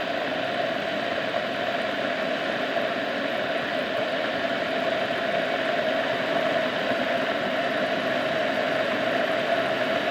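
Water heating toward the boil inside a 220-volt electric kettle: a steady rushing, bubbling noise from the metal heating element, growing slightly louder.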